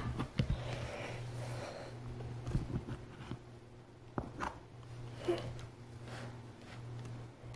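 Faint scattered clicks and taps of plastic Play-Doh tools as dough pushed out of the Fun Factory press is cut and handled on the table, over a low steady hum.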